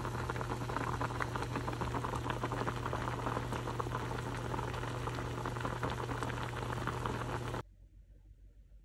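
Liquid boiling in a pot: a dense, steady bubbling crackle over a low hum, which cuts off abruptly near the end.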